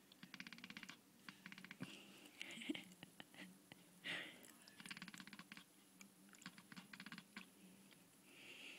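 A kitten making faint, rapid clicking noises in three short runs, each under a second, with a few soft breathy puffs between them.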